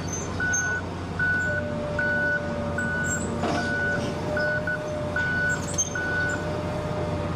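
Backup alarm on heavy demolition equipment beeping about once every 0.8 s over a low engine drone, the beeps stopping about a second before the end. A steady whine joins after about a second and a half, and there is a single knock of impact about halfway through.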